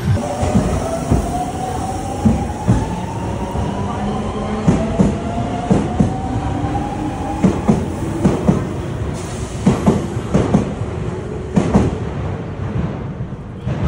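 Electric commuter train running past a platform: its motor whine climbs steadily in pitch through the first half, over a steady rumble, with the wheels clacking repeatedly over rail joints, the clacks coming thicker in the second half.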